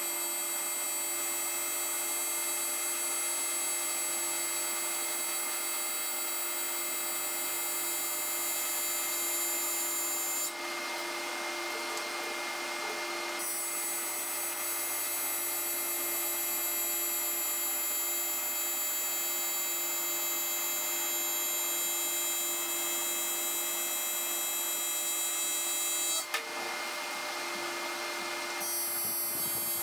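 Welding arc on aluminum sheet, a steady buzz that stops for a few seconds about ten seconds in, and again briefly near the end before starting up once more.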